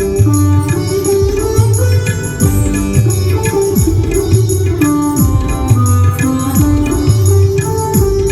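Indian-style music with tabla-like drum strokes, several bending downward in pitch, over a low steady drone and a sitar-like melody.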